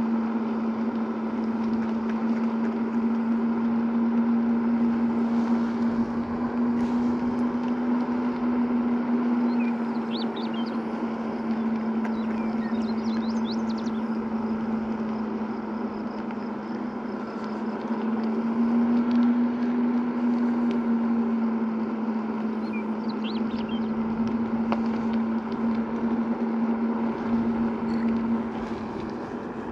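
Segway Ninebot Max G2 electric scooter riding along: a steady hum from the hub motor and tyres that rises slightly in pitch twice as the scooter speeds up, over a bed of tyre rolling and wind noise.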